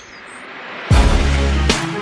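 Background music: after a quiet first second, a track with heavy bass and drum hits starts abruptly.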